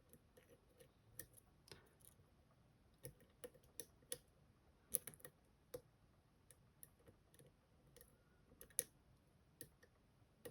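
Faint, irregular small metallic clicks and ticks of picking tools working the spring sliders and pins of an M&C Color+ dimple lock while probing for false gates. The loudest click comes about five seconds in, with another near nine seconds.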